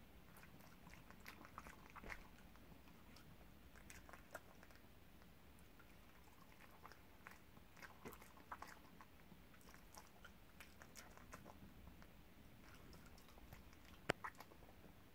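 Dogs chewing small pieces of cheese: faint, irregular clicks and smacks of their jaws, with one sharper click near the end.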